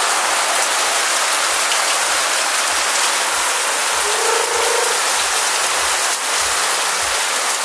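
Heavy rain pouring down: a dense, steady hiss of a downpour, with rainwater running over the ground. A short held tone sounds briefly about four seconds in.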